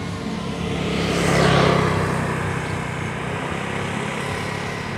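Steady motor hum that swells louder about a second and a half in, then eases back to a steady level, like an engine passing close by.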